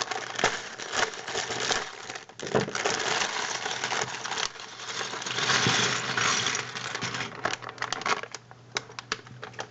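A plastic bag of Lego pieces being handled and opened: the plastic crinkles while the small plastic bricks rattle and clatter against each other in quick clicks.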